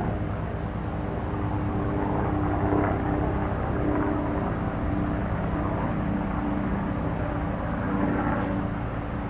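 Light single-engine airplane's piston engine running at a distance, a steady drone, with a thin steady high-pitched tone above it.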